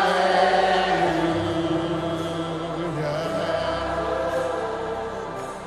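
Gospel worship singing: a long, drawn-out sung 'hallelujah' with held notes that gradually fade.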